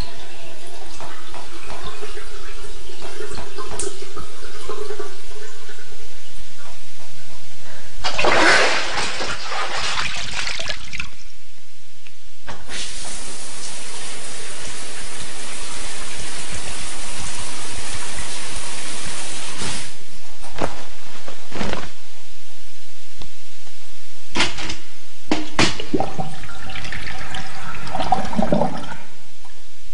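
Rushing water in surges, with a few sharp knocks about two-thirds of the way in.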